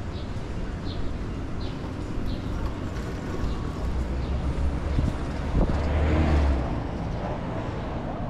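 City street traffic: a steady low rumble of road traffic, with a vehicle passing close and loud about six seconds in, a sharp knock at its start.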